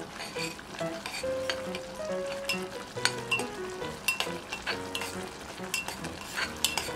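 A ladle stirring simmering tomato sauce in a pot, clinking against the pot several times, most often in the second half, over the soft bubbling of the sauce.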